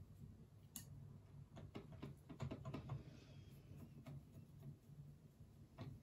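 Faint, irregular clicks and a light scraping of a paintbrush mixing watercolour paint in a palette.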